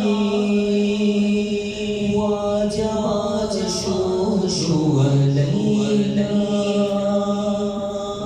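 A man chanting durood (salawat) through an echo-effect sound system, in long held, ornamented notes; the melody drops to a lower note about five seconds in and climbs again near the end.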